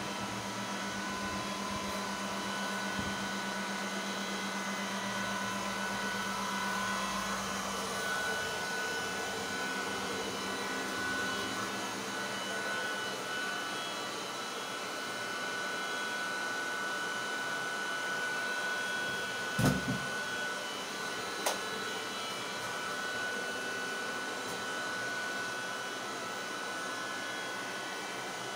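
Many graphics-card cooling fans on open-frame GPU mining rigs running at once: a dense, steady whoosh with several steady whining tones in it. A single thump comes about two-thirds of the way through, with a faint click a couple of seconds later.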